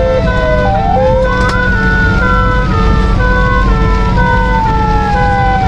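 Fire engine sirens heard from inside the moving truck's cab: a wailing tone that sweeps up quickly about a second and a half in and then falls slowly, alongside a second siren alternating between two notes, over the low rumble of the truck.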